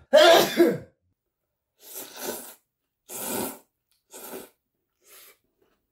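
A man's loud, drawn-out vocal cry with falling pitch, then a run of four noisy slurps as he sucks up spicy cold noodles, each fainter than the last.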